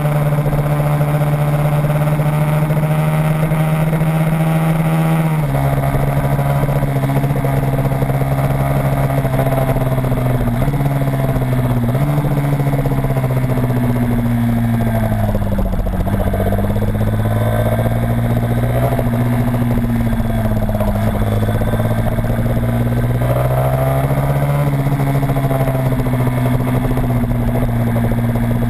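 Small racing engine heard onboard while lapping a kart circuit: a steady, loud engine note that drops sharply in pitch about five seconds in. It then sags and picks up again several times as the vehicle slows for corners and accelerates out.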